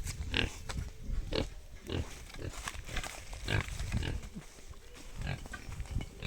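Pigs grunting and squealing in a run of short calls, about two a second, some reaching high, shrill squeals.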